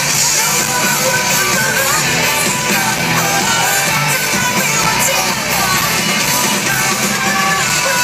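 Live rock band with electric guitars, bass and drums playing loud and steady through a large outdoor PA, heard from within the crowd.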